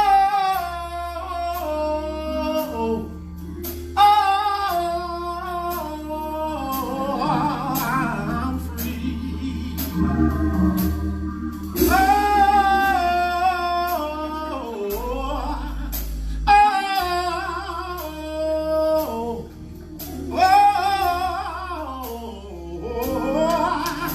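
Live gospel music: a singer holding long notes over organ, deep bass and drum hits.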